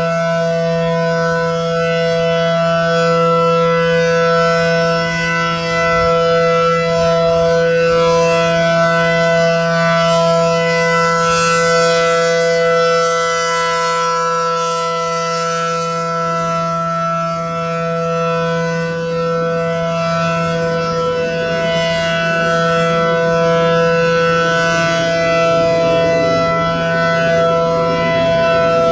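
ACA Allertor 125 electronic outdoor warning siren sounding a steady alert tone for a siren test, holding one pitch with several tones together, its loudness swelling and fading slightly.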